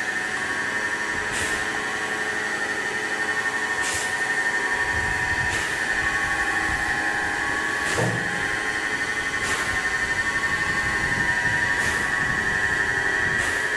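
Railway turntable turning a C56 steam locomotive: a steady high whine with a sharp click every couple of seconds.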